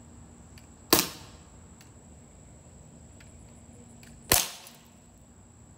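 Two sharp shots from a metal BB gun, about three and a half seconds apart, each cracking once and fading quickly.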